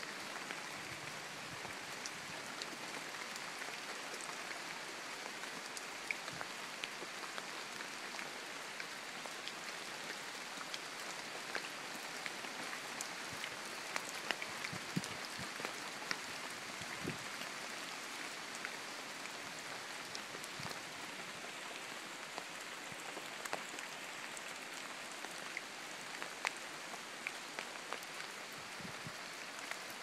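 Rain pattering steadily on rainforest foliage, with many scattered individual drops ticking throughout.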